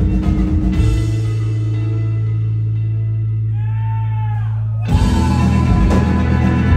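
Instrumental post-rock band playing live, with electric guitars, bass and drum kit. About a second in, the full band drops away to a single held low note with a few faint guitar tones bending downward. Near the five-second mark the whole band with drums comes back in, louder.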